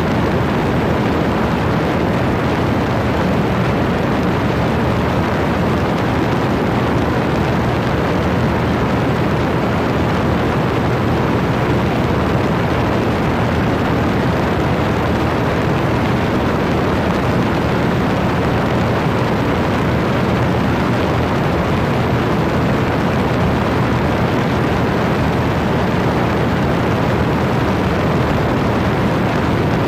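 Single-engine light airplane in cruise flight: a steady engine and propeller drone buried in heavy wind rush on a microphone mounted outside the plane, unchanging throughout.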